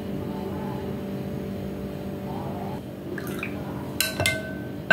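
A metal spoon clinking against the bowl and glassware of a sweet iced drink, a couple of short ringing clinks near the end, the loudest at the very end, over a steady low background hum.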